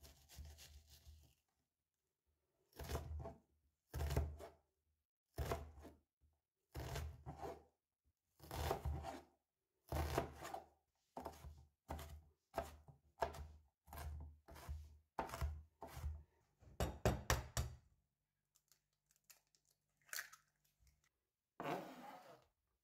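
Crofton chef's knife chopping onion on a plastic cutting board: short bursts of chopping about once a second, with a quicker flurry near the end of the chopping. Just before the end, the blade scrapes the chopped onion off the board into a bowl.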